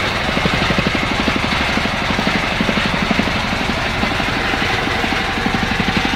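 A fishing boat's engine running steadily while under way, with a fast, even chugging, and a hiss of wind and water over it.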